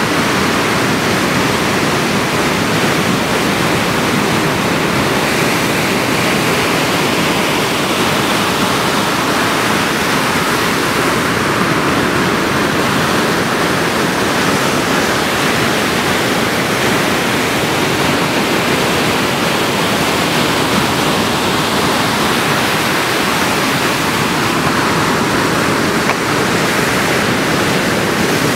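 Ocean surf: a steady, loud rush of breaking waves, even throughout with no distinct pauses or surges.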